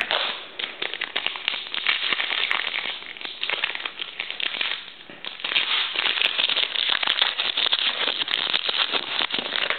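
Trading card pack wrapper torn open and crinkled by hand, a dense crackling that dips briefly about five seconds in.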